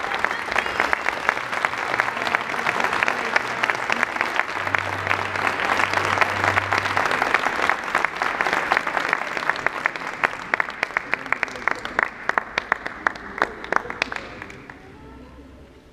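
Audience applauding, a dense steady clapping that thins out into scattered individual claps over the last few seconds and dies away about a second before the end.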